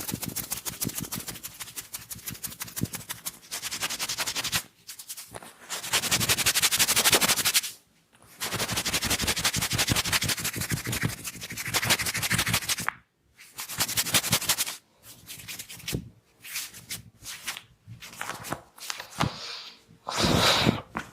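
Hands rapidly striking and rubbing a person's head and neck during a barber's massage: fast, dense slapping strokes in runs of a few seconds, broken by short pauses and turning into shorter bursts near the end.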